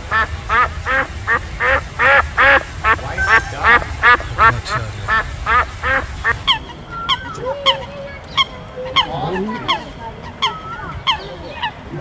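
White domestic geese honking: a rapid run of loud calls, about three a second, thinning out to sparser calls from about six seconds in.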